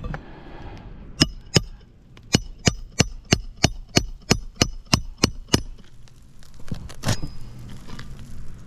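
Hammer blows driving a roofing nail through a snake jack into asphalt shingles: two strikes, then about a dozen quick blows at roughly three a second, and one more strike near the end. Granules are falling off the brittle shingles as they are struck.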